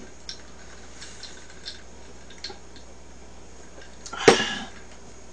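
Tableware clinking: a few light taps of utensils against dishes, then one louder clatter about four seconds in.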